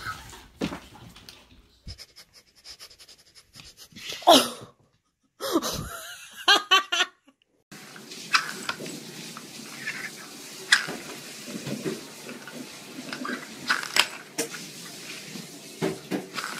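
A person laughing in short bursts. Then small plastic lids click and tap now and then on a wooden floor.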